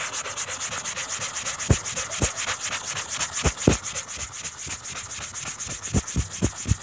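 Coarse side of a hand-held foam sanding sponge scrubbed rapidly back and forth over a car hood's painted surface: a fast, gritty rasping as the coarse grit cuts through the paint, with a few dull thumps along the way.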